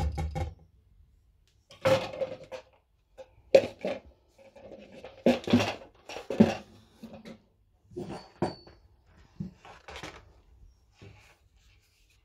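A wire whisk and a plastic mixing bowl being handled, giving a series of irregular knocks and clinks with short ringing.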